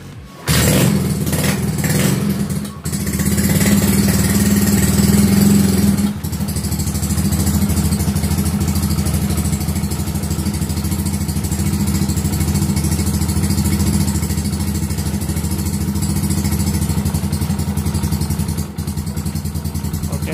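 Freshly rebuilt Yamaha Mio Sporty scooter's single-cylinder four-stroke engine starting about half a second in, revving up unevenly for a few seconds, then settling to a steady idle. It runs noisily, a noise the mechanic puts down to the exhaust.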